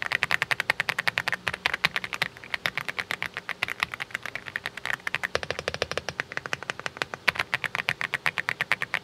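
Fast typing on an Aula mechanical keyboard, a rapid, even run of key clicks at about eight or more strokes a second, with a brief pause about five seconds in.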